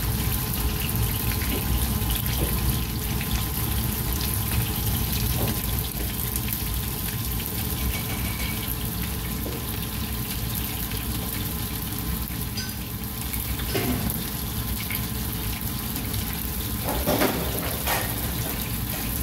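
Breadcrumbed fish fillets sizzling steadily in hot oil in a frying pan, with a few light knocks of utensils against the pans near the end.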